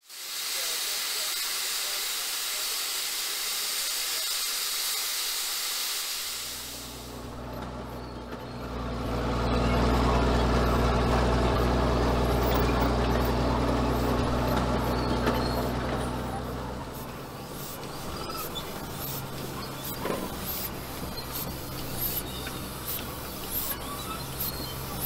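Steam hissing hard from a vintage steam tractor for about the first seven seconds. It gives way to a steady low mechanical hum, loudest a few seconds later, which carries on more faintly with a run of sharp clicks near the end.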